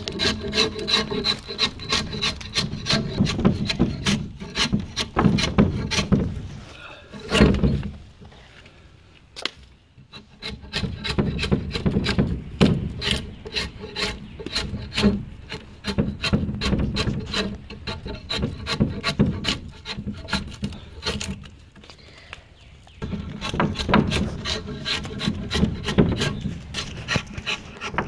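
Straight drawknife stripping bark from a small log fence post: quick, repeated scraping strokes of the blade through bark and wood. The strokes pause briefly twice, and there is one louder thump about seven seconds in.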